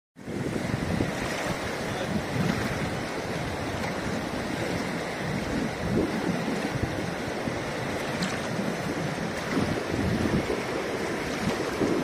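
Fast, shallow mountain river rushing steadily over stones, with irregular gusts of wind buffeting the microphone.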